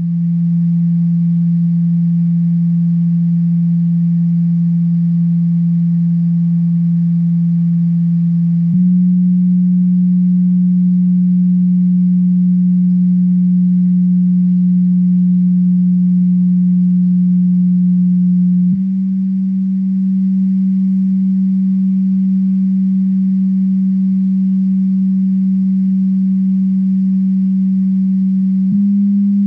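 MTX car subwoofer playing steady low test tones. The pitch shifts to a new note about every ten seconds.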